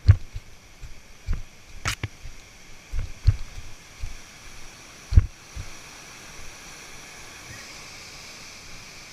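Irregular low thumps and knocks, a few of them sharp, for about the first five seconds, then a steady faint hiss.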